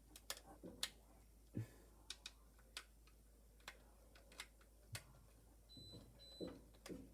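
Faint, irregular clicks and ticks of a small screwdriver and wires being worked at an alarm keypad's wiring terminals as the conductors are held down and screwed in.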